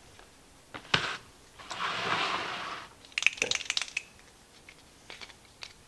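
Hard plastic parts of a Cuisinart carafe lid being handled and worked apart: a knock about a second in, a scraping noise lasting about a second, then a quick run of sharp clicks, with a couple more clicks near the end.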